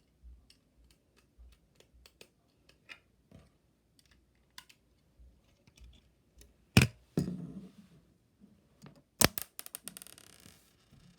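A string of light clicks, about two a second, then two loud knocks a couple of seconds apart; the second knock is followed by a brief rapid clatter.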